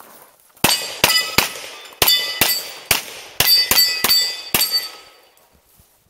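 About ten pistol shots fired in quick succession at steel plate targets, each hit followed by a clanging ring of the steel. The string starts about half a second in and ends before the five-second mark.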